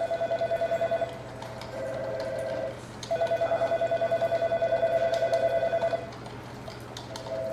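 Electronic office telephone ringing with a fast warble, in repeated bursts: a ring ends about a second in, a softer ring follows, then a long ring of about three seconds, and another starts near the end. A steady low hum and scattered faint clicks sit underneath.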